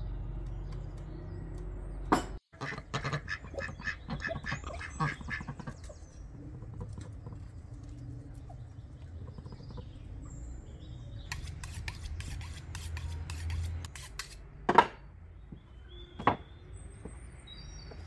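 A duck quacking in a quick run of calls, with faint chirping of small birds. Later come a patch of rapid clicking and two sharp knocks near the end.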